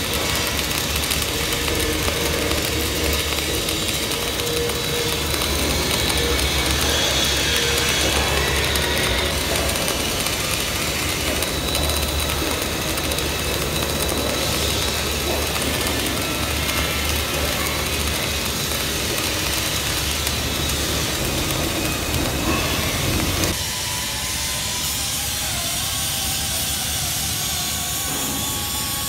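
Flux-cored arc welding at about 24 volts and 200 amps: the arc runs steadily as a dense hiss with a low hum beneath it. It stops abruptly about 23 seconds in, leaving a quieter steady machinery drone.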